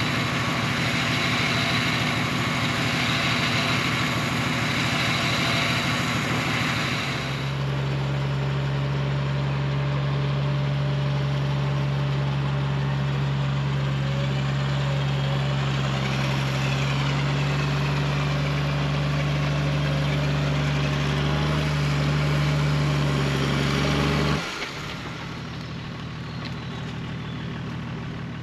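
Toyota Land Cruiser's engine working hard under load through a deep muddy water crossing, held at steady high revs for most of the stretch, with rougher hissing noise for the first several seconds. About 24 seconds in the revs drop back and it runs quieter.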